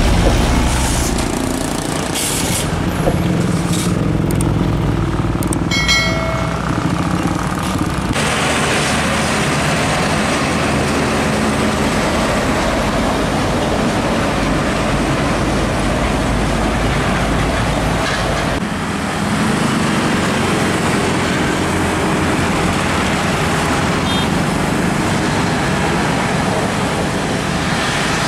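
Heavy diesel trucks running past on the road amid traffic noise, with a brief high-pitched tone about six seconds in.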